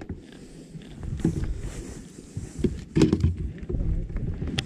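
Low rumbling wind and handling noise on the microphone, with a few sharp clicks and knocks, the sharpest near the end.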